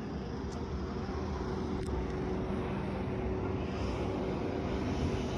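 An engine running steadily with a constant hum, under a rough low rumble.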